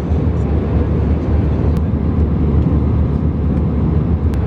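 Airliner cabin noise: a steady, loud low rumble of jet engines and airflow heard from inside the passenger cabin.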